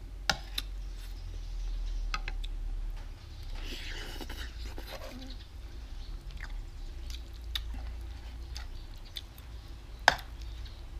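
A person eating noodles from a wok: chewing and slurping, with several sharp clinks of a metal spoon against the pan, the loudest about ten seconds in.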